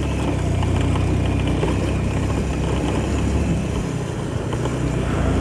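Motorcycle engine running steadily while riding along, a low drone with road and wind noise over it, easing off briefly about four seconds in and then picking up again.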